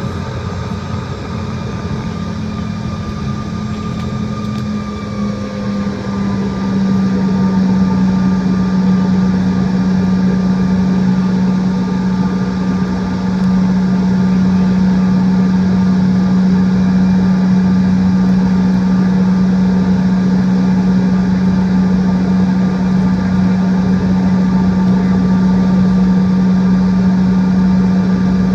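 Cabin noise of a CRJ-700 regional jet taxiing, its two rear-mounted GE CF34 turbofan engines running with a steady low drone and fainter higher tones above it. The sound grows louder about seven seconds in and again about thirteen seconds in.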